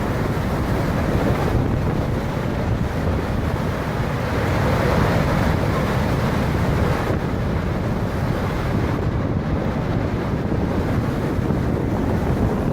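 Strong wind buffeting the microphone over the rush of a rough sea, a steady low-heavy roar. The hiss in the upper range thins about seven seconds in.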